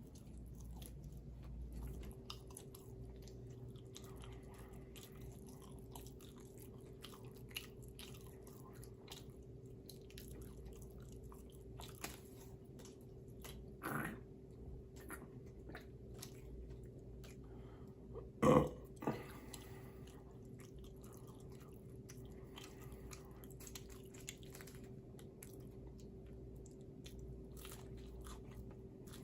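A person chewing food at the microphone, with many soft, crunchy clicks of biting and mastication. There are two louder, short mouth sounds about 14 and 18 seconds in, the second the louder, over a faint steady hum.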